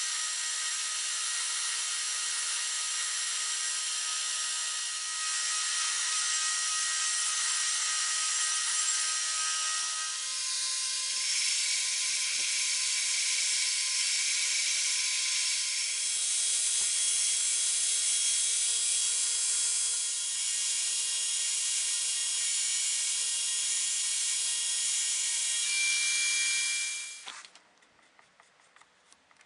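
Electric grinder running steadily on steel, a high-pitched whine with a grinding hiss that shifts slightly several times as the takes change. It stops suddenly near the end.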